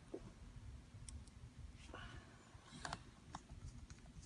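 Faint, scattered clicks and light taps of small parts being handled while the replacement solid state drive is fitted into a 2011 MacBook Air.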